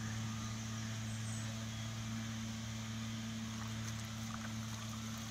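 A steady, unchanging low machine hum with one low pitch and its octave above, over faint outdoor background.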